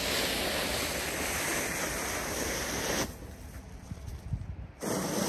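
Hand-truck-mounted snow pusher blade scraping along an asphalt driveway as it shoves heavy wet snow: one continuous scrape for about three seconds, then a second, shorter scrape near the end.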